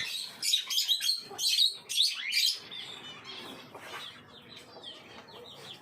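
Many small cage birds chirping and tweeting over one another. The chirping is thickest and loudest for the first two and a half seconds, then goes on thinner and softer.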